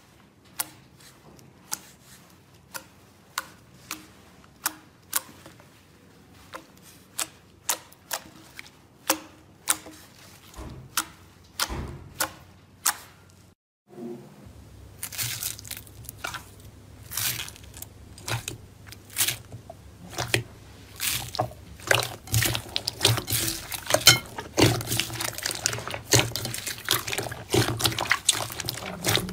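Fingers pressing into purple noise putty (fart putty) in a bowl, each press giving a sharp pop, about one and a half a second. After a short break, hands squishing and kneading wet white slime in water, a denser run of crackling, squelching sounds.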